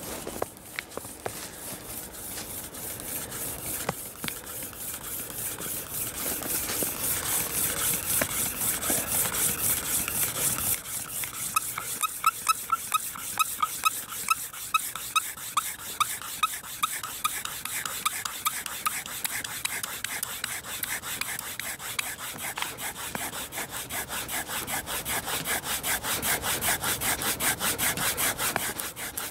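A fire thong sawn rapidly back and forth under a split piece of dry wood, making a rhythmic rasping rub. For several seconds in the middle each stroke squeaks. The rubbing grows louder toward the end as the friction heats the wood until it smokes.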